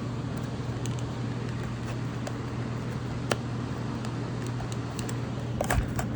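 A few light clicks and knocks from the plastic parts of a stick vacuum being handled: one about three seconds in and a short cluster near the end. A steady low hum sits underneath.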